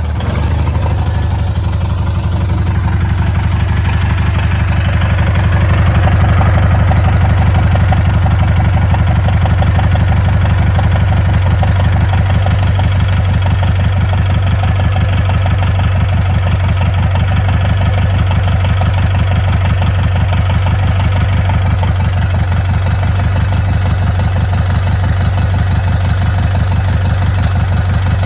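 Craftsman GT18 garden tractor engine running steadily, warming up and stirring the old oil before it is drained. It gets a little louder a few seconds in, then holds an even speed.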